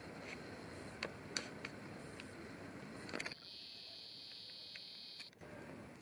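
Outdoor forest ambience: a low, steady rustle of air with a few short, high chirps, then a steady high-pitched trill for about two seconds.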